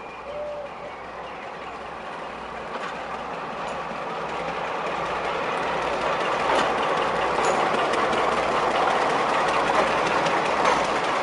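Class 42 Warship diesel-hydraulic locomotive running slowly past with its coaches. Its twin Maybach diesel engines grow louder as it draws near, with wheels clicking over the rail joints.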